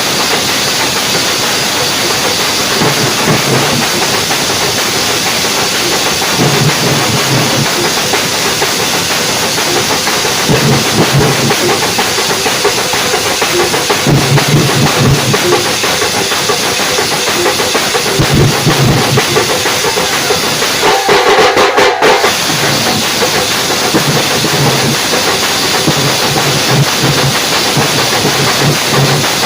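Loud, dense drumming of a Kerala temple-festival drum ensemble (chenda drums), a continuous massed roll with recurring deeper pulses. A short brighter, louder surge comes about two-thirds of the way through.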